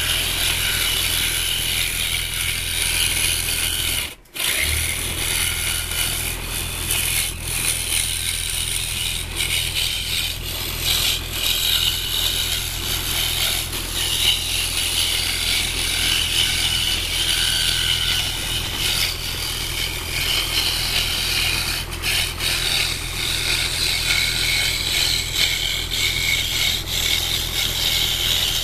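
Electric scroll saw running, its reverse-tooth blade cutting fretwork through thin wood: a steady motor hum under the blade's fast chatter. The sound briefly cuts out about four seconds in.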